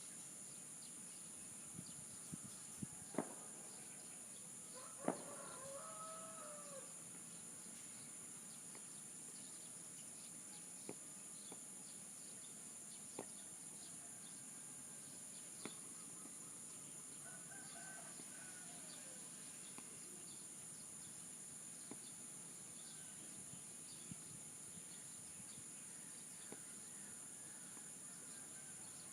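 A rooster crowing in the distance, once about five seconds in and again more faintly near the middle, over a steady high-pitched insect drone. Scattered sharp clicks are heard throughout.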